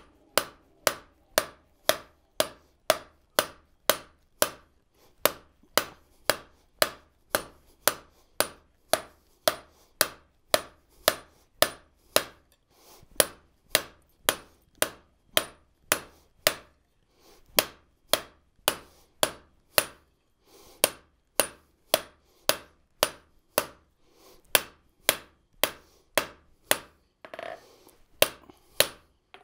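Hand hammer striking hot steel on an anvil, about two blows a second with a few brief pauses, drawing out the reins of a pair of forged tongs.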